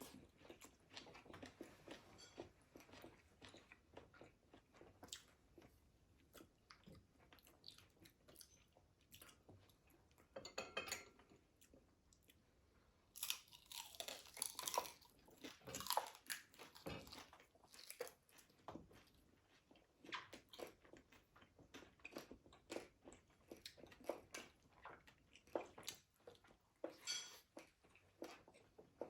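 Close-up chewing and crunching of crispy fried food, a steady run of small bites and crunches that grows louder for a few seconds in the middle.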